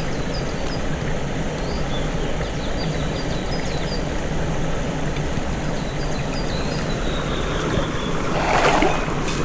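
Mountain stream rushing over rocks: a steady rush of water, with a brief louder noise near the end.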